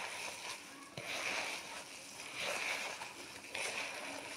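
Hands rubbing and kneading mallow flower petals with sugar in a bowl, a rustling, squishing noise in about three strokes a little over a second apart. This is the jam-making step where the sugar is worked in to draw the juice out of the petals.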